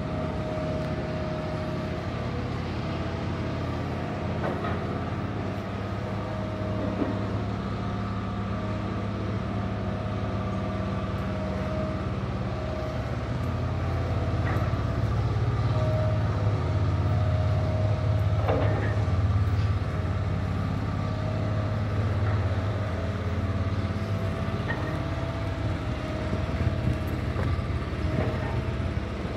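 A heavy construction machine's engine running steadily, with a low hum and a held higher tone that comes and goes. It grows louder about halfway through. A few light knocks sound over it.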